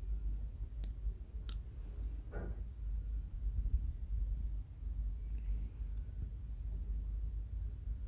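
A steady high-pitched whine runs over a low hum, with a few faint small clicks in the first few seconds.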